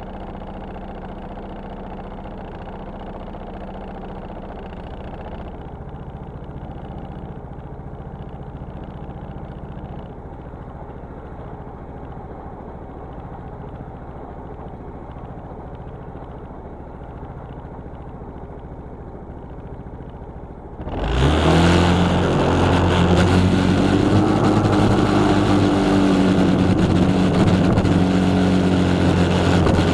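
Yamaha Cygnus X scooter's single-cylinder four-stroke engine running steadily under way, a muffled, even hum at first. About two-thirds of the way in the sound turns suddenly much louder and fuller, a strong steady engine drone with a hiss over it.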